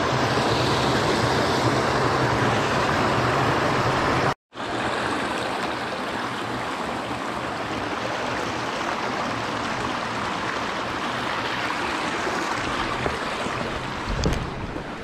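Stream water rushing over rocks in a small cascade into a pool, a steady loud wash. It cuts out for an instant about four seconds in and comes back a little softer, and a couple of knocks sound near the end.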